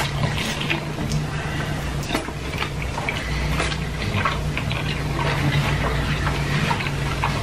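Close-miked chewing of fast food by two people: wet mouth noises with many small clicks and smacks, over a steady low hum.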